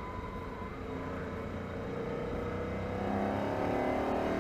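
Ford Mustang GT's 5.0-litre V8 running under throttle, its pitch climbing steadily over the last second or so as the car accelerates.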